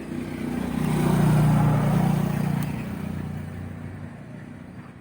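A motor vehicle's engine passing by, growing louder to a peak a second or two in and then fading away.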